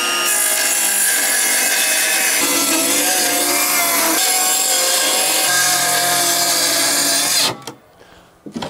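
Circular saw cutting through a sheet of plywood: the blade runs loud and steady, its pitch shifting as it works through the wood, and it stops abruptly about seven and a half seconds in once the sheet is cut in two.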